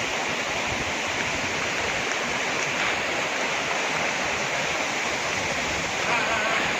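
Sirki waterfall: a steady rush of falling water.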